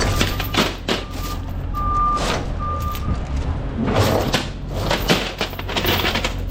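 A vehicle backup alarm beeping in on-off pulses through the first half, over a steady low engine hum, with several sharp knocks scattered throughout.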